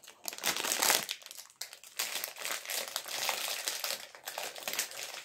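Thin clear plastic bag crinkling and rustling continuously as hands open it and take dried apricots out, with many small crackles.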